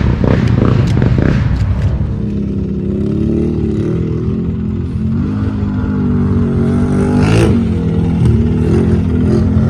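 Can-Am XMR 850 ATV's V-twin engine running through an aftermarket slip-on exhaust, its pitch rising and falling with the throttle. Clattering in the first couple of seconds and a short burst of noise about seven seconds in.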